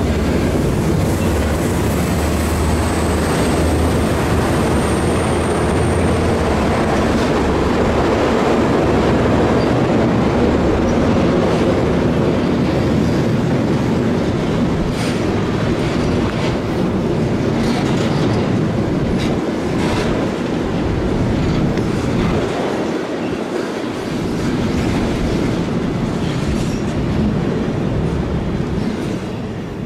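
Freight train rolling past, with a steady rumble of wagons on the rails and repeated clicks of wheels over rail joints. A low drone fades out after the first several seconds, and a thin high wheel squeal sounds briefly early on.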